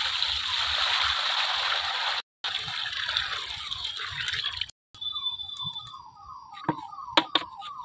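Water poured from a plastic bucket splashing into a plastic tub of water for nearly five seconds, then tailing off. A bird repeats a short falling chirp about three times a second throughout, and a few sharp knocks come near the end.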